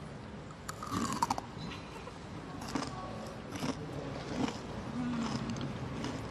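Kohakutou, a crystallised Japanese sugar-jelly candy with a crisp sugar crust, bitten and chewed right at a binaural dummy-head microphone's ear: a quick cluster of crunchy crackles about a second in, then scattered crunches every second or so.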